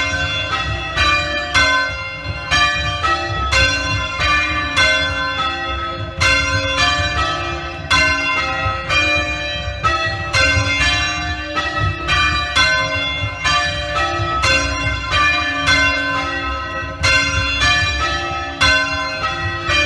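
A ring of three Mears church bells (tenor 4–2–6 in C) being rung full-circle in change ringing. The strikes follow one another in an even rhythm of about two to three a second, each note ringing on into the next. The bells are very loud, since they hang just above the ringing-room ceiling with no sound insulation.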